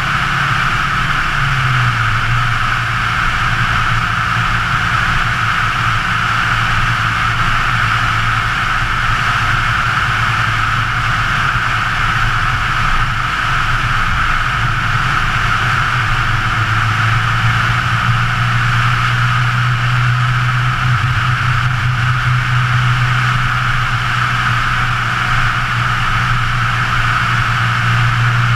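Scion FR-S's 2.0-litre flat-four engine running at road speed, heard from outside the car on the hood with a steady rush of wind and tyre noise over it. The engine note drops a little about two seconds in and rises again about two thirds of the way through.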